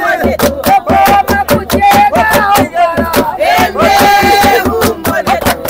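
Voices singing loudly to a sharp, steady beat of about four strikes a second, with a long held note about four seconds in.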